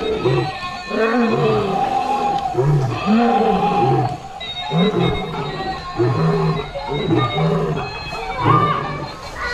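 Battery-operated toy lion playing recorded lion roars and growls, one after another roughly every second.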